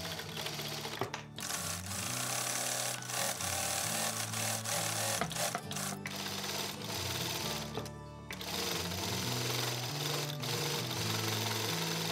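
Juki DDL-900B industrial lockstitch sewing machine stitching net fabric through a gathering foot. It runs at a steady speed, pauses briefly about a second in and again around eight seconds in, then runs on.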